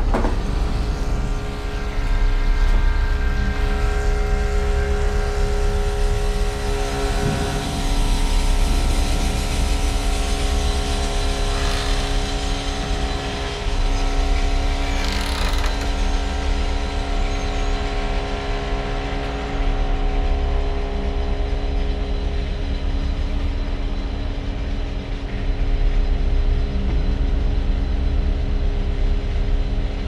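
A loud, steady low rumble with several held tones over it, running unbroken, with a couple of brief hissing swells partway through.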